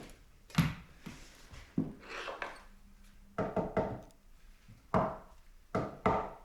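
A string of sharp wooden knocks and thumps, irregularly spaced, from 4x2 timber bench-frame pieces being handled and knocked into place.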